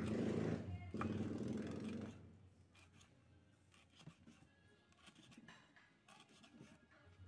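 A kitchen knife chopping dried coconut husk fibre against a wooden board: a loose series of short, light taps and cuts. For about the first two seconds, loud background music covers the chopping.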